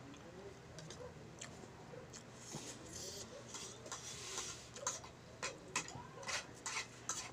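Close-up mouth sounds of someone eating pancit canton noodles: a hissy stretch of sucking in noodles around the middle, then a run of sharp wet clicks and smacks from chewing in the last few seconds.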